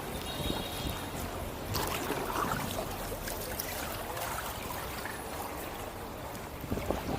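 Kayak paddle strokes: water trickling and dripping off the paddle and splashing lightly alongside the hull, with a few brief swishes.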